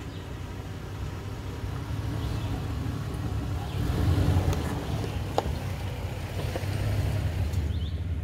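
Toyota 4Runner's 4.0-litre V6 engine running at low crawling speed as the SUV creeps over a rocky trail, growing louder about four seconds in as it passes close by. A few sharp clicks from the tyres on loose rock.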